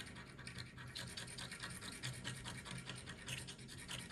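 The silver coating of a scratch-off lottery ticket being scraped off in rapid back-and-forth strokes, fainter in the first second.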